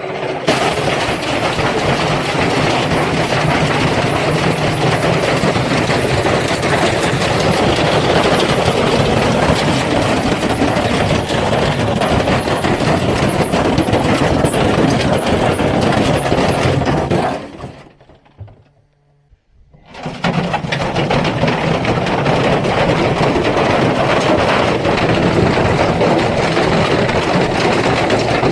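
Electrolux washing machine running with a brick loose in the drum, a loud, continuous clattering and banging as the brick is flung around. The noise drops away for about two seconds roughly two-thirds of the way through, then resumes just as loud.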